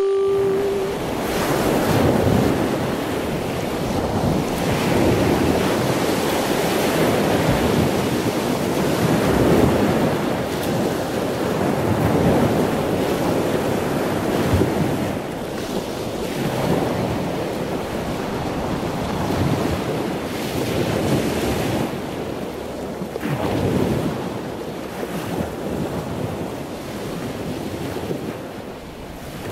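Ocean surf washing onto a beach, each wave swelling and receding every few seconds, fading somewhat near the end.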